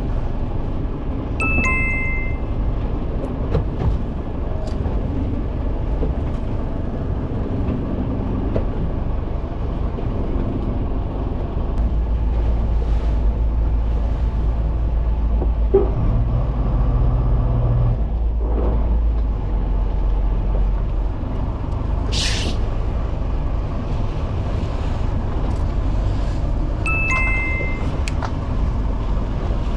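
Fishing boat's engine running under wind and water noise, with a deeper engine hum strengthening about twelve seconds in. A short ringing chime sounds twice, near the start and near the end, and a brief hiss or splash comes about two-thirds of the way through.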